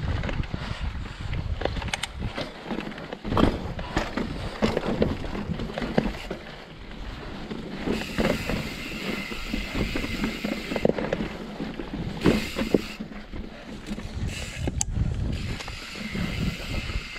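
Mountain bike riding down a rocky trail: tyres rolling and bumping over rock and dirt, the bike rattling with frequent sharp knocks and clatter, and wind buffeting the microphone.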